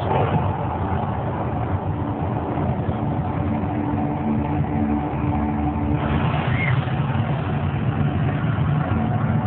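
Steady vehicle traffic noise, a continuous rumble without pauses.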